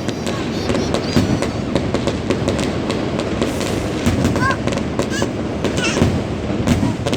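Fireworks going off in a dense, continuous run of rapid crackling pops and bangs, with crowd voices underneath.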